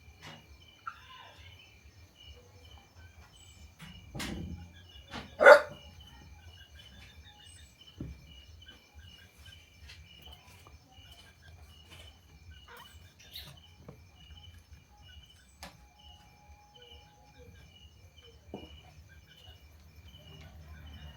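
Insects chirping in a steady, evenly pulsing chorus, with a puppy barking twice, about four seconds in and again about five and a half seconds in, the second bark loud.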